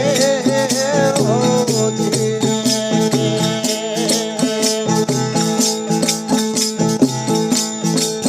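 Instrumental passage of a folk devotional song: steady jingling hand percussion keeps a quick rhythm under a sustained melodic instrument, with the last sung note trailing off about a second in.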